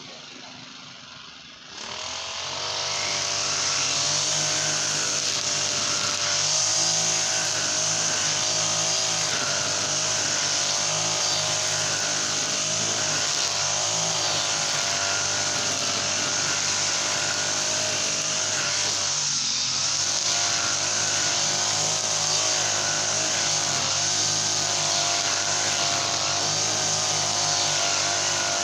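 Brush cutter with a Honda GX35 four-stroke engine throttled up from idle about two seconds in, then running steadily at high revs with small wavers in pitch.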